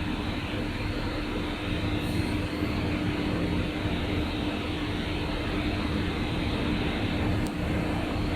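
Steady machine drone with a constant hum, from the PP heat press welding machine running while idle before the press cycle is started.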